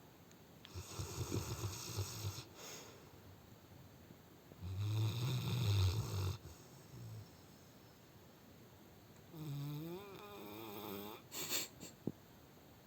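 Cane Corso snoring in its sleep: three rough snores, the loudest about five seconds in, and near the end a longer snore with a wavering, pitched, groan-like tone.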